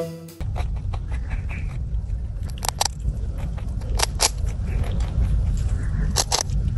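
A young rabbit biting into a crisp rice cake, with sharp crunches coming in quick pairs three times, over a steady low rumble. Music cuts off about half a second in.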